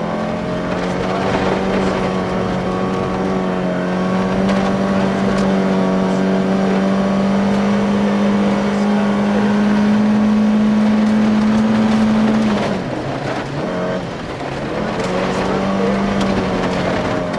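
Volvo 240 rally car's engine heard from inside the cabin, pulling hard at a steady, slowly rising pitch on a gravel stage, with scattered clicks of gravel hitting the car. About twelve seconds in the engine note drops off and wavers for a couple of seconds, then pulls again.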